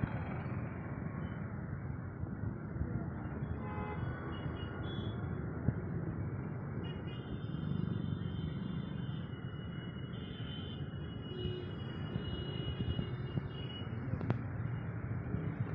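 Steady rumble of motorbike and car engines in traffic on a flooded road, with a vehicle horn sounding on and off from about seven seconds in to near the end.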